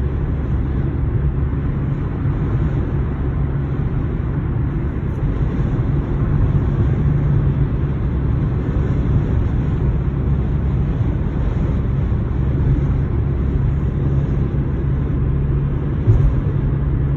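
Steady road and wind noise inside a car's cabin at highway speed, a low rumble with a faint hum, as the car is buffeted by strong wind. One brief knock near the end.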